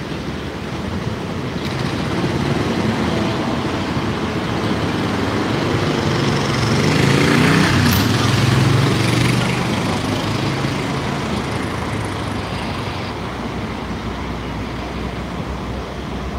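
Street traffic with a motor vehicle passing close by: a steady wash of road noise and engine hum that swells to its loudest about eight seconds in, then fades.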